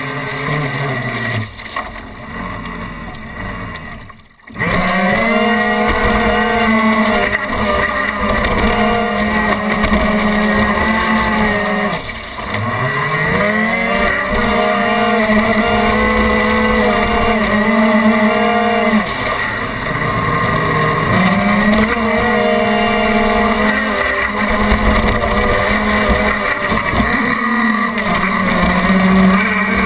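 Twin Graupner Speed 600 brushed electric motors of an RC speedboat whining steadily at speed, heard from on board, with water rushing and splashing past the hull. The whine dips in pitch and climbs back twice as the throttle is eased and reopened. A brief drop-out comes about four seconds in.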